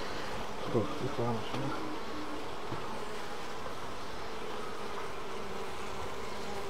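Honeybees buzzing steadily around an open frameless hive full of natural comb. About a second in there is a brief, louder buzz that wavers and falls in pitch, as of a bee passing close.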